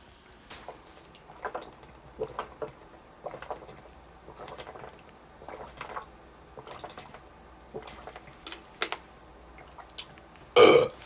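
A person gulping water from a plastic bottle: a string of quiet swallows, about one or two a second, then a short loud cough near the end.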